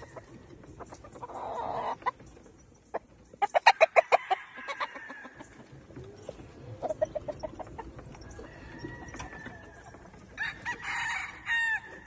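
Gamefowl clucking and crowing: a rapid run of loud clucks a few seconds in, a shorter run of clucks midway, and a rooster crowing near the end.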